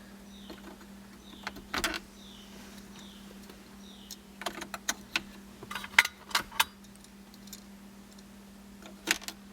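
Plastic dashboard control knobs being pushed back onto their stems: scattered light clicks and taps in small clusters, with a few faint squeaks.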